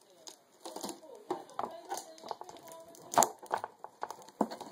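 Hands working at the stiff lid of a trading-card collector's tin that is hard to open: a string of irregular clicks, knocks and scrapes, the sharpest about three seconds in.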